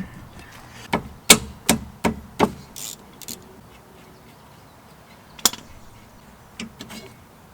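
Sharp metal knocks and clanks from brake parts being worked loose and handled: five in quick succession in the first couple of seconds, one more a few seconds later, then a few lighter taps near the end.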